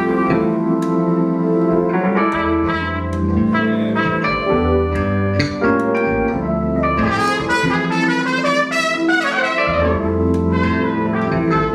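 A live band playing with a brass section, trumpet and trombone prominent over bass notes.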